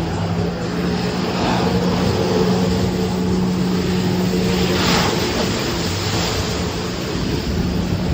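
Jet ski engine running steadily at high power to drive water up a flyboard's hose, a continuous drone over a rushing hiss that swells briefly about five seconds in.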